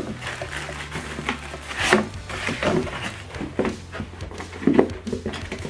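Cardboard packaging and its contents being handled while unboxing: irregular rubbing and light knocks, over a steady low hum.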